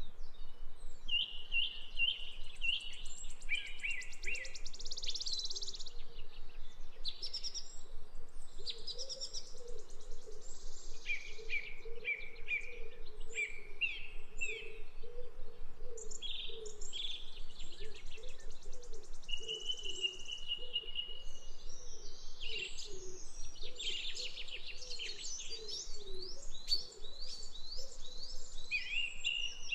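Several birds singing and chirping in short, varied, high phrases that overlap throughout. Beneath them runs a steady string of short, low, wavering notes.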